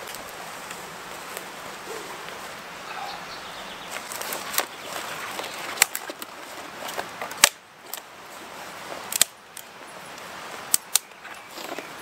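Dead conifer twigs snapped by hand off a fallen branch: about six sharp, separate cracks from about four seconds in, gathering kindling and firewood. Before them, footsteps and rustling on the needle-covered forest floor.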